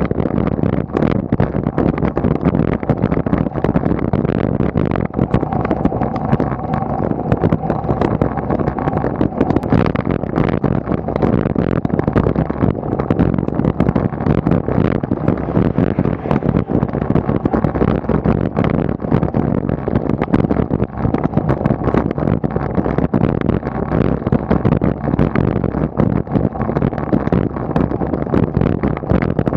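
Steady wind and road rumble on a bicycle-mounted camera's microphone while riding, with many small irregular knocks mixed in.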